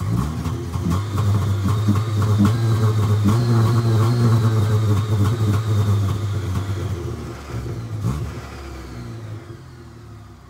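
Ford Festiva engine held at steady raised revs, its exhaust popping and crackling as flames shoot from the tailpipe. About seven seconds in the revs drop, with one short blip of throttle near eight seconds, and the engine settles back toward idle.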